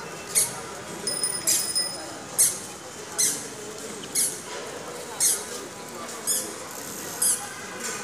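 Helmeted guineafowl calling, with short, high-pitched calls repeated about once a second, around eight in all.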